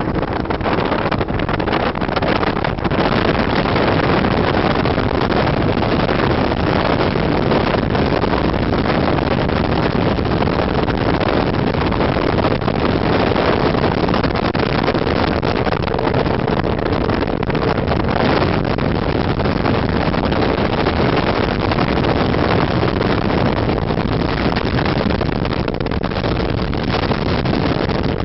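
Fishing boat's big outboard motor running at speed, a loud steady din mixed with wind rushing over the microphone.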